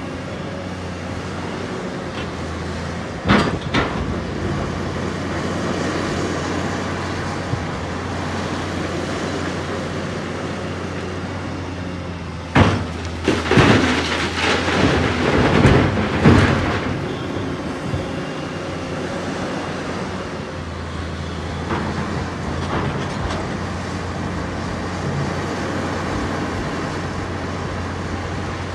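Doosan DX530 excavator's diesel engine running steadily under load. A couple of sharp knocks about a quarter of the way in, then several seconds of loud crashing around the middle as a bucket of quarry rock is dumped into a truck's bed.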